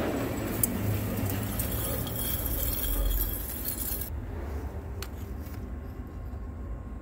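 Boring bar cutting inside a steel piston blank turning on a centre lathe, with steel chips clinking and jangling in the bore. About four seconds in the cutting noise stops abruptly, leaving a lower hum with a few light clicks.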